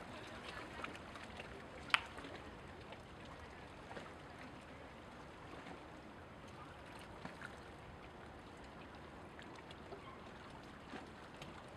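Small waves lapping and trickling at the bay shore, with scattered light splashes and one sharp click about two seconds in.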